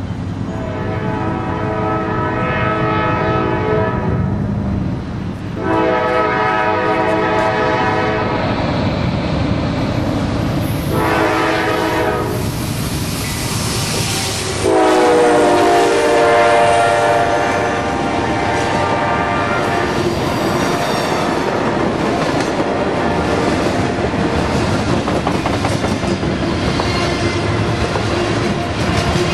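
Norfolk Southern GE C40-9W diesel locomotive sounding its air horn in the grade-crossing signal as it passes close by: two long blasts, one short, then a final long blast. After the last blast, a freight train's cars roll past with a steady rumble and clickety-clack of wheels over rail joints.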